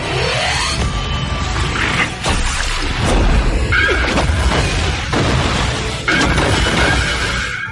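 Tokusatsu hero sound effect: a dense, loud layered mix of music and electronic effects that starts suddenly with a falling sweep, with crashes and booms and sharp hits along the way, a fresh hit about six seconds in.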